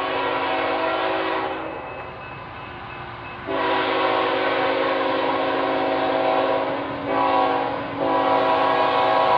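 Freight locomotive's multi-chime air horn blowing a loud chord in long blasts. The first blast fades out about a second and a half in, the horn comes back about two seconds later and holds, with two short breaks near the end.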